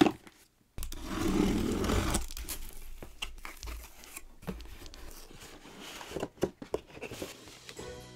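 Tape being slit and torn off a cardboard gift box, a loud ripping rasp lasting about a second, followed by rustling and light knocks as the box is handled.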